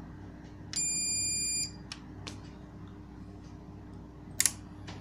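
A UPS's internal buzzer gives one high-pitched beep, about a second long, near the start. This is the beep a UPS makes when it is running on battery with no mains power. About four and a half seconds in there are a couple of sharp clicks, the loudest sounds here.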